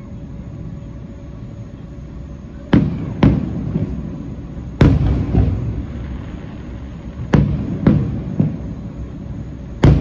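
Aerial fireworks bursting: after a low rumble, a series of sharp bangs starts about three seconds in, several coming in quick pairs about half a second apart, each followed by a rolling echo.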